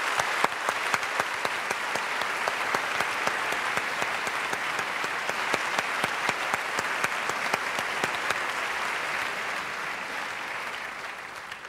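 Opera house audience applauding, a steady dense clapping that dies away near the end.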